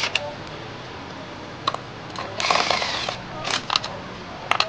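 Hand tools working on oil pan bolts: a few separate sharp metallic clicks, and one short run of rapid clicking about two and a half seconds in.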